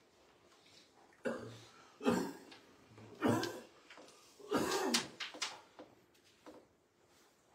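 A person coughing and clearing their throat, four times in a row, the last one longer.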